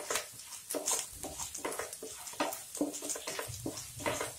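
Wooden spatula stirring and scraping through a dry tempering of seeds, lentils and cashews in a non-stick frying pan: irregular light scrapes and taps, several a second.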